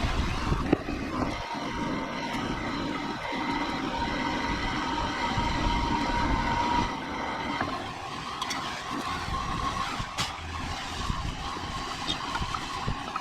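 A vehicle engine running steadily with a whine over it; the tone shifts about seven and a half seconds in, and a few light clicks sound over it.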